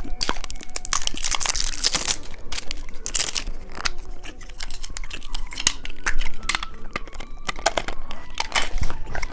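Plastic candy packaging crinkling and tearing, with many sharp crackles and a few crunches; the loudest rustling comes about one to two seconds in and again around three seconds in.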